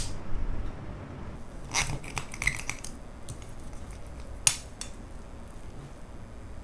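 Close-miked eating sounds: short clicks and clinks of cutlery against a dish, a small cluster about two seconds in and a single sharper clink near the middle.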